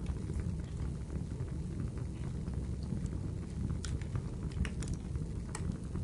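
Fire crackling: a steady low rumble with sparse sharp pops and snaps, several of them in the second half.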